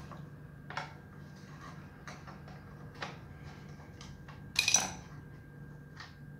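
Small clicks of a screwdriver turning screws out of a plastic clothes-iron housing, then a short bright metallic clatter about four and a half seconds in as the screwdriver is put down on the stone floor.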